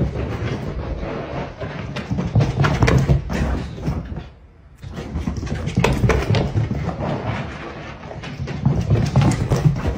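Rapid thumps and scuffling of running feet as a pomsky dog tears around the house with the zoomies, with a short lull about four seconds in.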